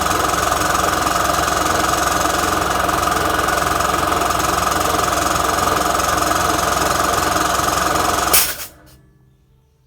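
Air compressor running steadily as it charges its tank, with a strong steady tone and a fast rattle. It shuts off with a sharp click about eight seconds in, once the tank is at full charge, and the noise dies away.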